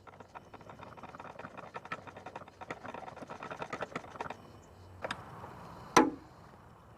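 A quick, uneven run of small metallic clicks and taps from hand-tool work on the hose clamps and fittings. It stops about four seconds in and is followed by a sharp knock, then a louder, sharp clank about six seconds in.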